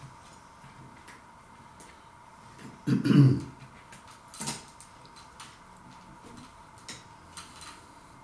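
Metal fork clinking and scraping against the pie tray in light, irregular ticks, with one louder, short noise about three seconds in.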